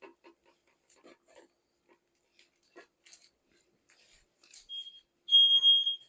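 Smoke alarm going off, set off by smoke from parchment paper too close to the broiler rack. A short high-pitched beep comes about four and a half seconds in, then the loud, steady high-pitched alarm tone from about five seconds on. Before that there are only light scattered kitchen clicks and taps.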